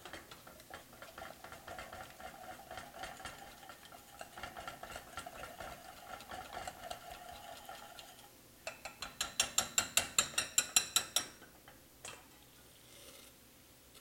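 Wire whisk stirring melted chocolate and cream in a glass bowl, a quick, soft clicking of the wires against the bowl. About two-thirds through it turns to brisk, louder ringing clinks, about six a second for a couple of seconds, then stops.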